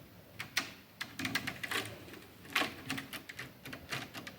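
Scattered light clicks and taps as a magnet is held and moved against a bottle of water, irregularly spaced.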